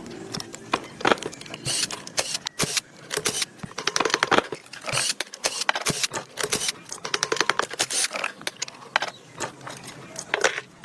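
Irregular clicks, clinks and short scrapes of hands and tools working on metal parts.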